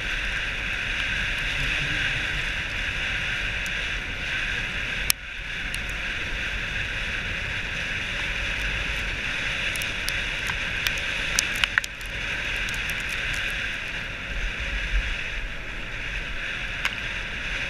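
Dog sled gliding over packed snow behind a running dog team: a steady hiss of the runners, with wind buffeting the microphone and a few sharp clicks from the sled, one about five seconds in and several near twelve seconds.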